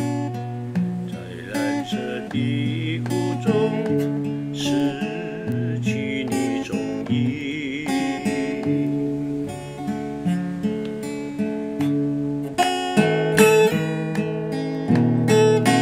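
Acoustic guitar played solo, picking a slow melody over ringing bass notes; about three-quarters of the way in the playing gets busier, with quicker, sharper strokes.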